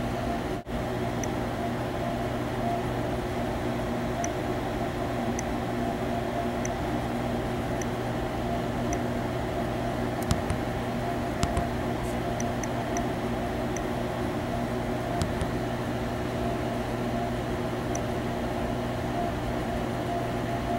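Steady mechanical hum with a low buzz, like a running fan or motor, at an unchanging level, with a few faint, scattered high clicks.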